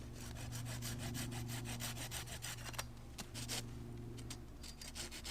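Quick, repeated rasping strokes of something working green hazel wood, with a short break about three seconds in, over a steady low hum.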